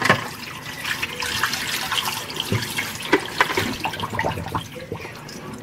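Water pouring in a steady stream from a tipped fish tank into a stainless steel sink, splashing around the drain as the dirty tank water is emptied.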